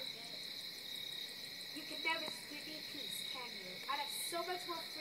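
Evening outdoor chorus of frogs and insects: a steady high-pitched trill, with a few short calls rising over it now and then.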